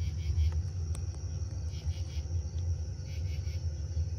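Crickets chirping in short groups of quick pulses, repeating every second or so, over a steady low rumble, with a couple of faint clicks about a second in.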